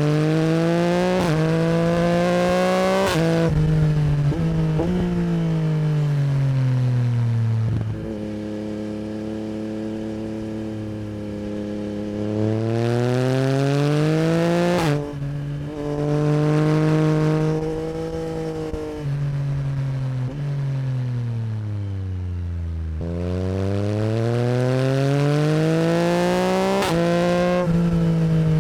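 Yamaha MT-09 SP's 890 cc CP3 crossplane three-cylinder engine through an Akrapovic Racing Line exhaust, revving up through the gears with quick upshifts, then falling away on closed throttle. This happens three times: at the start, about halfway, and near the end.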